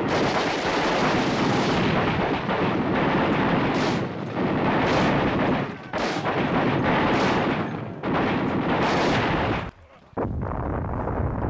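Loud, dense battle sounds: a continuous din of gunfire with sharp blasts about once a second, broken by a brief drop out near the end.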